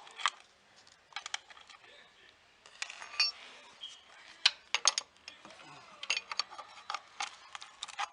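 Hand tools and metal motorcycle parts clinking and clicking irregularly during reassembly, some clicks with a short metallic ring.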